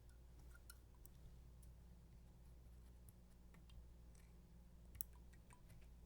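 Near silence: a steady low hum with faint, scattered small clicks, one a little louder about five seconds in.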